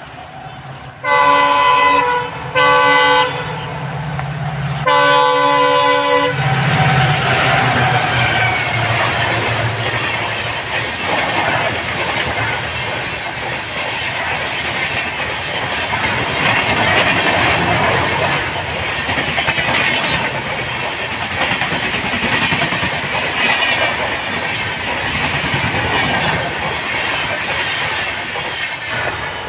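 Twin WDG4 EMD diesel locomotives sound their multi-tone air horn three times, two short blasts and a longer third, over the low rumble of their engines. The train then passes, with a loud continuous rush and the clickety-clack of wheels over the rails.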